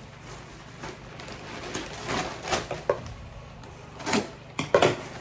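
Rustling and light knocks of products and packaging being handled, a few short scrapes with a sharp click or clack near the end.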